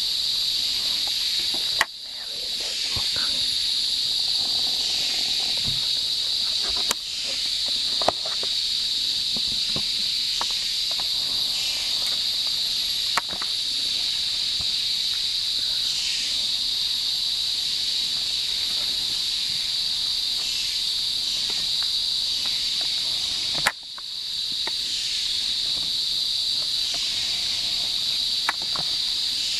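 Rainforest insects droning steadily in one high, even band, with a few sharp clicks and snaps scattered through.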